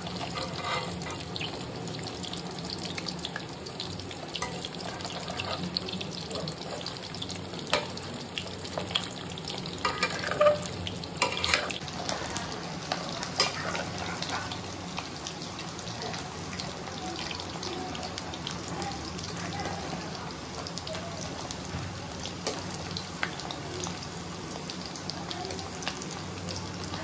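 Whole boiled potatoes frying in hot oil in a pan: a steady sizzle with scattered crackling pops, and a cluster of louder clicks about ten to eleven seconds in. The potatoes are being browned before going into the gravy.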